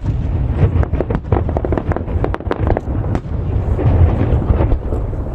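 Aerial fireworks shells bursting in quick succession: a continuous deep booming rumble with many sharp cracks layered over it.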